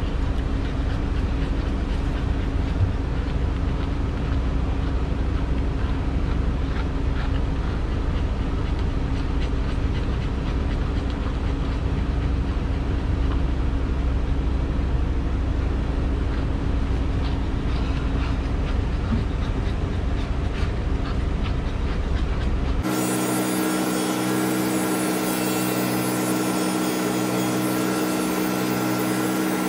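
Electric pet clippers running steadily over a low mechanical rumble while a Bichon Frise is clipped. About 23 seconds in the sound changes abruptly: the low rumble drops away and a hissier, higher hum takes over.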